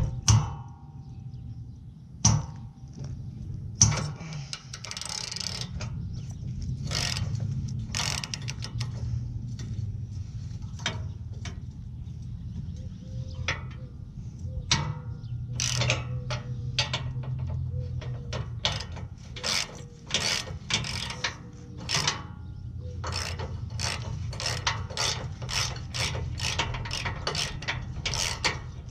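Hand ratchet with socket and extension clicking in quick runs of strokes as a bumper-bracket bolt is turned, with a few sharper metal knocks in the first four seconds.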